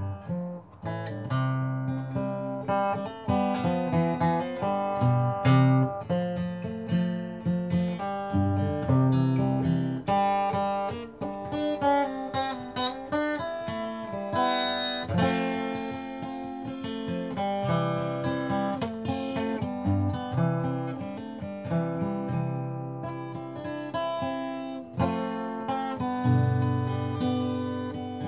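Acoustic guitar played solo: an instrumental passage of picked notes and strummed chords, with no singing.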